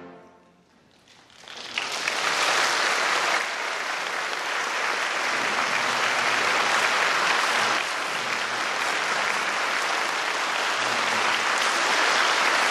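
A wind ensemble's final chord dies away in the hall's reverberation. About a second and a half later an audience breaks into applause, which stays full and steady.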